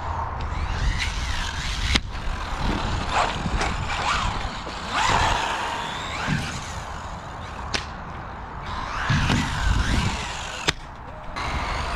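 WLToys 124017 brushless RC car's electric motor whining up and down in pitch as it is driven hard and jumped, with three sharp knocks of the chassis hitting the ground.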